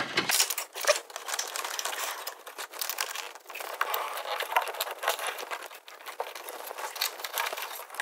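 Irregular rustling and small clicks of a wiring cable and plastic engine-bay parts being handled as the cable is tucked behind a car's headlight.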